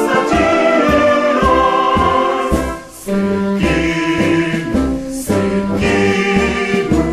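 A civic anthem played by an instrumental ensemble, with a choir singing along.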